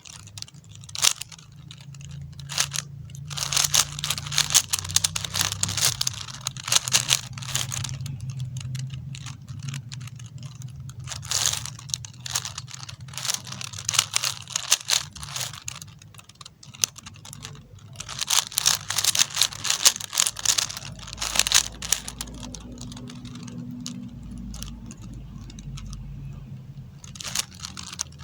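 A plastic 4x4 Rubik's cube being turned fast, its layers clicking and clattering in quick bursts with short pauses, as its edge pieces are paired up.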